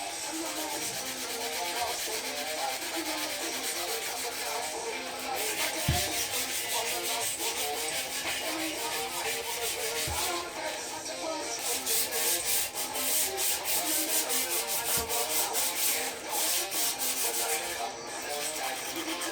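Sandpaper rubbed by hand over a Mongoose bike frame in rapid back-and-forth strokes, with a few dull knocks.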